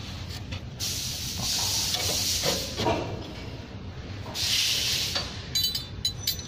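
Hissy rubbing and scraping as a dust guard strip is worked into place by hand beside a band saw blade, in two stretches, with a few light clicks near the end.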